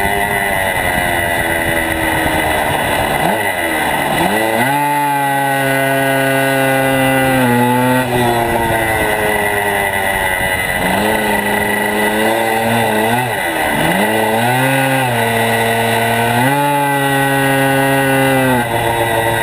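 Motorcycle engine at full effort on a track, close to an on-bike camera: the pitch climbs, steps down at each gear change, and twice falls away steeply as the bike slows for a corner, about 3 to 4 seconds in and again about 13 seconds in, before it accelerates hard again.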